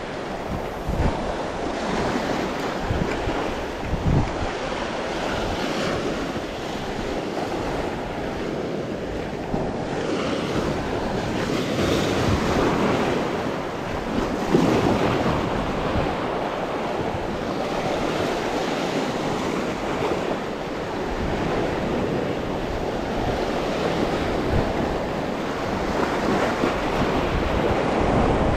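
Sea surf breaking and washing over shore rocks in a steady rush, with a few louder surges as waves break. Wind buffets the microphone.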